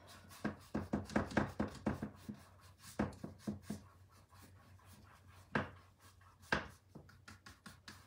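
Flat paintbrush scrubbing acrylic paint onto a canvas in short rubbing strokes, several a second at first, then sparser, with two louder strokes past the middle.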